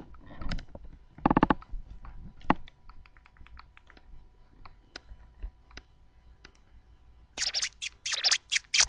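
Scattered light clicks and taps of buttons being handled on a mobile phone, then a phone ringtone starts playing in short loud bursts about seven seconds in.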